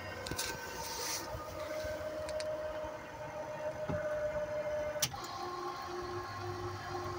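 Electric drive of a FADIEL swivel-out car seat running as the seat turns and moves out through the door opening, a steady motor whine. About five seconds in there is a sharp click, after which the motor note changes and a tone pulses about twice a second.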